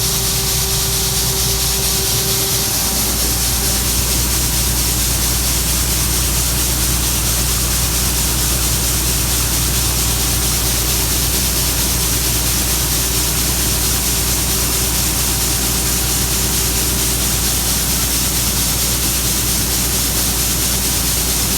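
Gleaner M2 combine running steadily while unloading soybeans: a constant engine drone under a wide hiss of grain pouring from the unloading auger.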